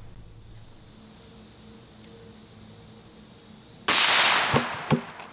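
A single AR-15 rifle shot with a 5.56 mm 62-grain green-tip round: a sudden loud crack about four seconds in that rings off for about half a second, followed by two fainter sharp cracks.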